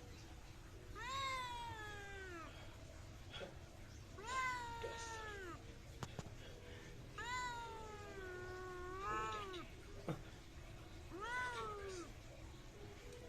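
Domestic cat meowing in four long, drawn-out calls that fall in pitch, the third the longest and wavering; the uploader takes the cat to be angry.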